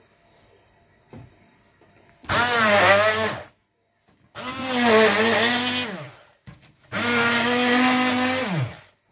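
Hand-held stick blender run in three bursts of one to two seconds each, its motor whine rising as it spins up and dropping as it winds down. It is chopping fresh coriander with cooked dried fish in a plastic jug.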